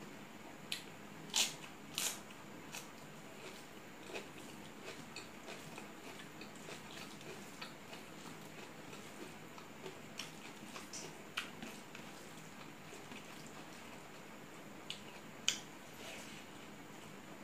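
Eating sounds from someone eating rice by hand: chewing with scattered sharp wet clicks and smacks, the loudest a few near the start and one about fifteen seconds in.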